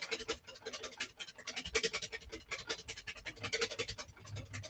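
Wire whisk beating fast against a metal bowl, a quick even run of scraping clinks, as oil is drizzled into egg yolks to emulsify them.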